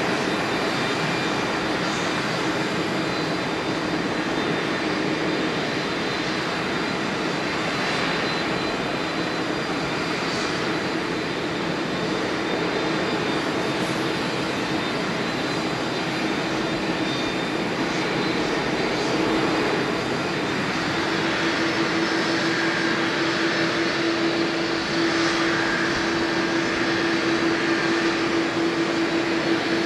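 Airbus A330-300 airliner's engines running at idle during pushback: a steady jet rumble and whine, with a low hum that grows stronger about two-thirds of the way in.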